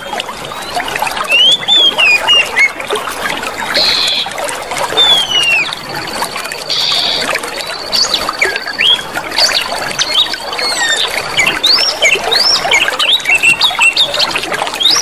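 Clear water flowing and trickling steadily, with many small birds chirping over it in short, quick calls that rise and fall. A thin, high steady tone runs from about six to eleven seconds in.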